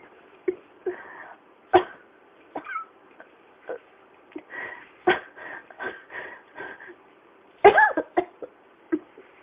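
A person in a coughing fit: a string of short, sudden coughs, with louder ones about two and five seconds in, a quick run of small coughs at about four a second, and a harsh, voiced cough near the end.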